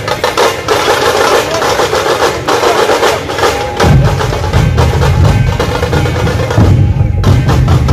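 A street drum band, likely a dhol-tasha group, playing loud and fast: rapid, sharp high-pitched drum rolls, with deep dhol beats joining about four seconds in.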